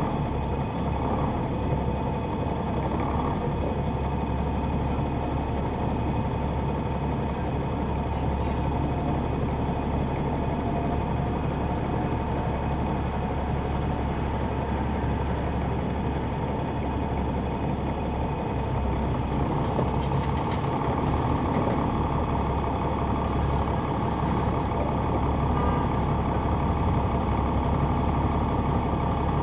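Caterpillar C9 ACERT diesel engine of a 2004 Neoplan AN459 articulated transit bus running steadily, heard from the rear seats inside the bus. The drone grows a little louder near the end.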